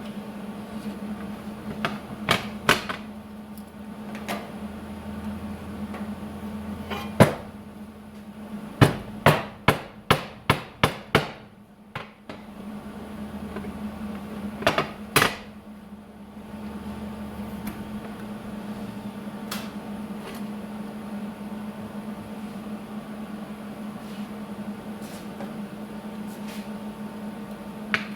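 Sharp hammer blows on steel: a few single strikes, then a quick run of about seven evenly spaced blows, then two more. A steady low hum runs underneath.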